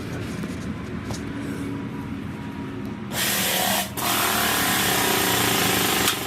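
A power tool runs with a loud hissing whir, starting about three seconds in, dropping out for a moment, then running again until it cuts off suddenly. Before it there is a low mechanical rumble.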